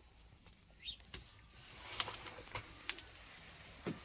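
A bird chirps once outside, about a second in, over faint rustling, scattered clicks and knocks of someone moving about and handling the camera in a small boat cabin, with a thump near the end.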